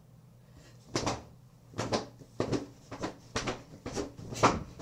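A run of quick knocks and rustles, about eight or nine, coming closer together and getting louder toward the end.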